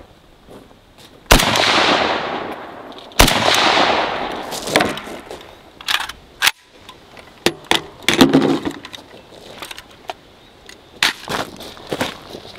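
Two rifle shots about two seconds apart, each with a long echo trailing off, followed by scattered small clicks and knocks.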